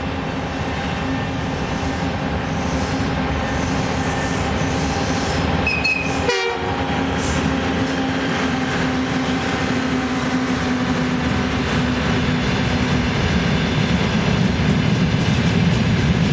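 A 2M62UM diesel freight locomotive passes close by, its engine running steadily. The covered hopper wagons behind it follow with rolling wheel noise and rail clatter, which grows slightly louder near the end.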